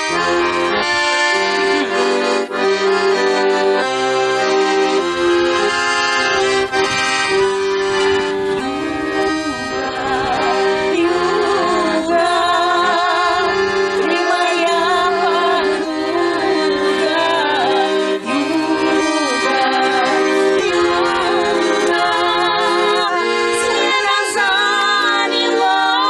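Button accordion (a Russian garmon) playing a folk-song melody over steady chords. Women's voices sing over it for stretches, with a wavering vibrato in the middle of the passage.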